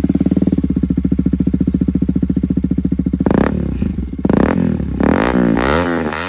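KTM RC 200's single-cylinder engine running through an aftermarket SC Project-style full exhaust. It idles with a rapid, even pulse, is revved sharply about three seconds in, then is blipped repeatedly, the pitch rising and falling with each blip.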